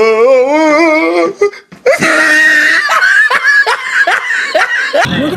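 A man's long, wavering shout, then loud laughter in short falling bursts about two to three a second.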